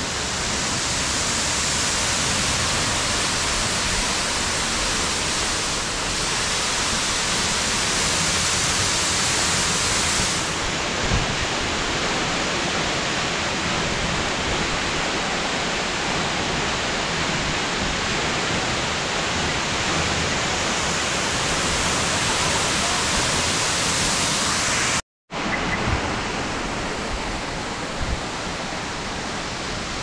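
Steady rushing of a tall waterfall plunging down a rock face, an even wash of water noise. It cuts out for a moment near the end, then resumes.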